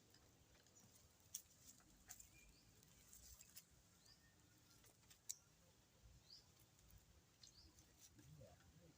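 Near silence: faint scattered clicks and a few faint, short, high chirps.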